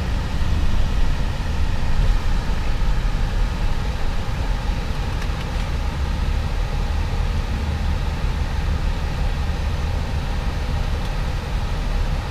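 Steady low rumble of road and engine noise heard inside a car's cabin as the car is driven.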